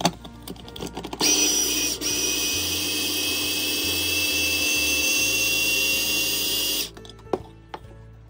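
Small electric mini chopper running under a pressed-down motor head, grinding roasted peanuts with their skins: a steady high whine that starts about a second in, falters briefly about two seconds in, and cuts off near the end. A few knocks of the motor head being set on the glass bowl come before it starts.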